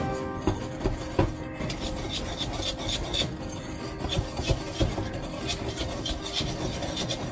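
Wire whisk stirring a dry mix of flour, ground almonds and sugar in a glass bowl: a scraping rasp with irregular clicks of the wires against the glass.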